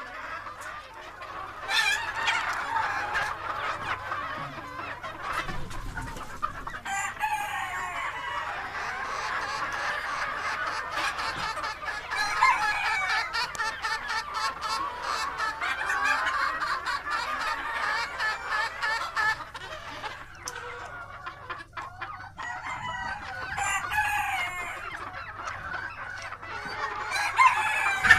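A flock of white bantam chickens clucking and calling over one another without pause, with a rooster crowing among them.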